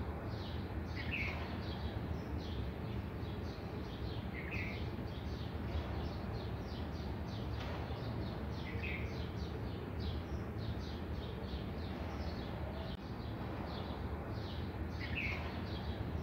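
Marker tip squeaking on a whiteboard in rapid short strokes while hatching lines, over a steady low hum. A brief higher chirp comes a few times, about 1, 4.5, 9 and 15 seconds in.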